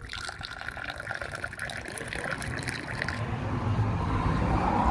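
Tea poured from a silver teapot into a small glass, a steady splashing stream that stops about three seconds in. A low rumble then builds toward the end.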